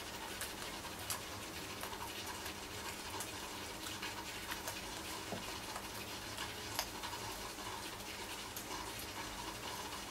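Steady hiss of recording noise with a faint low hum and many small scattered clicks.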